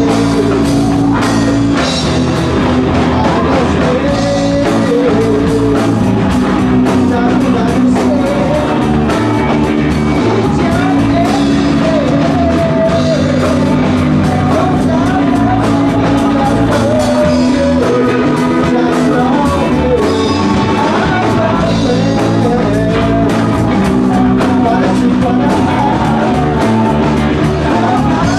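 Live rock band playing loud: distorted electric guitars, bass and a drum kit, with a male singer singing over them.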